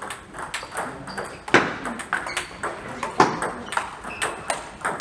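Table tennis rally: a plastic ball clicking off rubber-faced paddles and the table top in quick, irregular succession, with two sharper hits about a second and a half in and just past three seconds.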